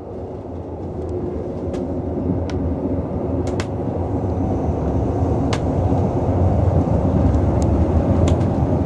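Railway carriage rolling along the track, heard from inside: a steady low rumble that grows louder, with scattered sharp clicks and creaks.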